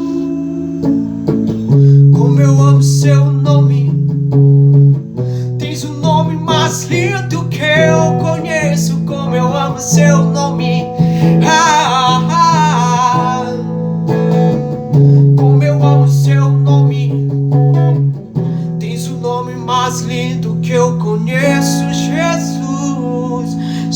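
A man singing a gospel hymn to acoustic guitar strumming, the voice coming in phrases with short pauses between them.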